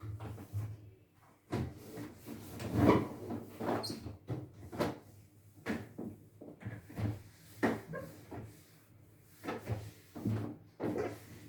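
Irregular knocks, clatters and rubbing as the inside of a refrigerator is handled and wiped down with a cloth, the loudest knock about three seconds in.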